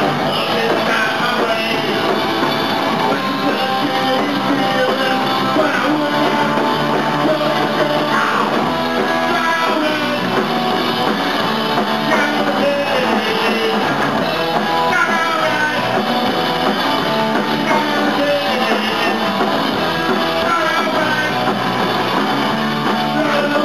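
Live rock band playing loudly: electric guitar, bass and drums, with a singer's vocal over them.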